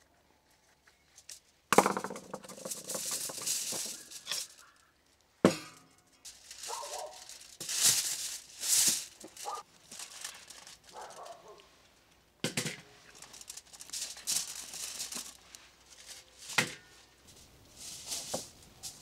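Crisp crackling and rustling as a whole spit-roasted lamb is carved and handled on aluminium foil, broken by four sharp knocks.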